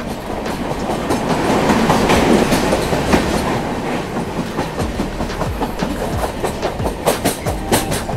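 Mandovi Express LHB passenger coaches running at speed, heard from an open coach door: a steady rush of wheel and track rumble with wheels clacking over rail joints. The rumble swells about two seconds in, and a quick run of sharp clacks comes near the end.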